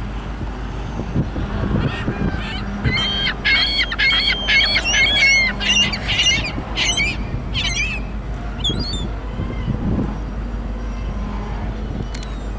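A flock of geese honking in a quick run of short calls for several seconds, over the low, steady rumble of a slow-moving freight train's cars.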